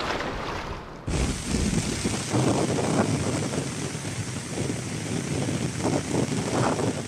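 Small surf waves washing up a sandy beach, a steady hiss of breaking water that starts abruptly about a second in.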